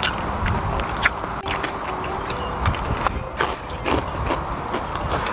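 Close-miked chewing of honey-grilled chicken breast, with many short wet mouth clicks and smacks, over a steady low rumble of sea wind on the microphone.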